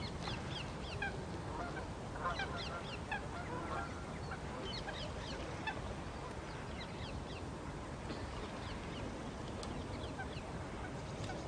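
A flock of birds calling, many short falling chirps overlapping one another, over steady outdoor background noise.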